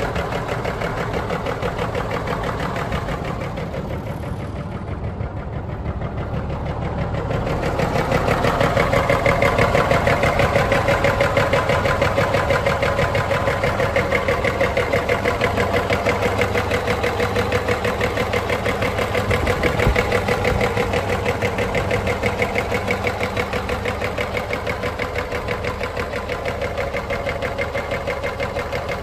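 Cummins 400 inline-six diesel engine of a 1984 Freightliner semi idling steadily, heard close up in the open engine bay. It grows louder about eight seconds in, with no change in engine speed.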